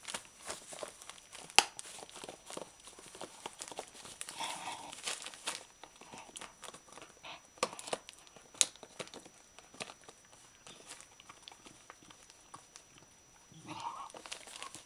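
A terrier biting and tearing at gift wrapping paper around a chew bone: continuous crinkling and tearing of paper with many small crackles. There are sharp snaps about a second and a half in and again near nine seconds.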